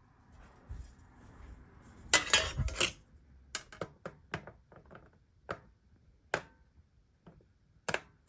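Handling noise: a clattering scrape lasting almost a second about two seconds in, then a string of separate sharp clicks and knocks at irregular intervals, with a light clinking quality.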